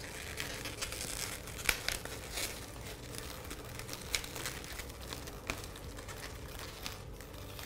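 Crinkly rustling of metallic curling ribbon and latex balloons being handled, with a few light clicks and taps, the sharpest about two seconds in.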